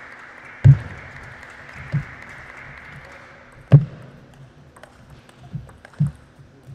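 Table tennis rally: the celluloid-type plastic ball clicking off rackets and table, with several heavy low thuds, the loudest about a second and nearly four seconds in, over a steady background hum.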